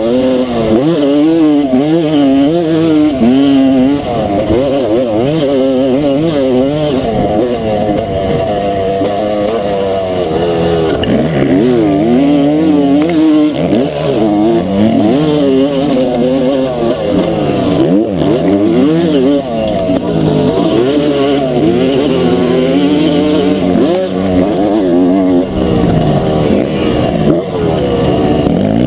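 Pre-1990 Honda CR250 two-stroke motocross engine revving hard under racing throttle, its pitch climbing and dropping again and again.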